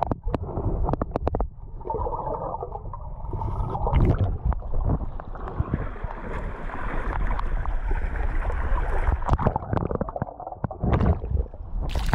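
Water heard through a submerged camera: muffled gurgling and sloshing over a low rumble, with scattered knocks as the camera moves in shallow water.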